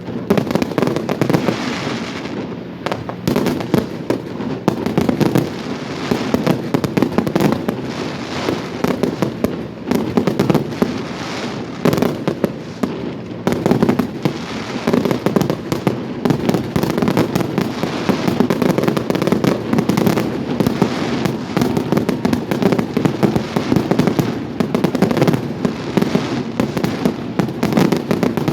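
Fireworks display going off in a dense, continuous barrage of bangs and crackling, with no pause between bursts.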